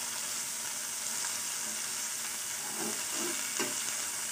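Chopped coriander leaves and stems sizzling in a little hot oil in a kadai, stirred with a perforated steel spatula: a steady, even sizzle, with a few faint scrapes of the spatula about three seconds in.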